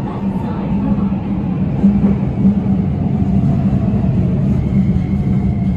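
Keikyu New 1000 series (1500 subseries) electric train heard from inside the car as it slows alongside a station platform: a rumble of wheels with a steady low hum and a motor whine sliding slowly down in pitch. A thin, steady high tone comes in near the end. The uploader takes the drive to be a Toyo SiC VVVF inverter, the same as on the 1890 subseries.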